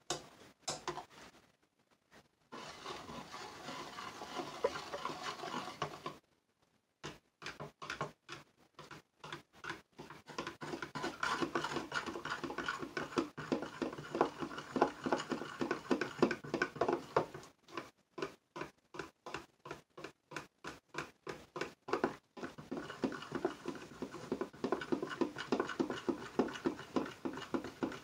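Metal spoon stirring and scraping lye flakes dissolving in water in a plastic pitcher, in a quick run of strokes a few times a second, with a short pause about six seconds in.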